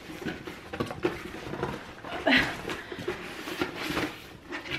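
Cardboard shipping box being worked open by hand: its stiff lid and flaps scrape, rustle and click as they are pried loose, with one louder rasp a little past halfway.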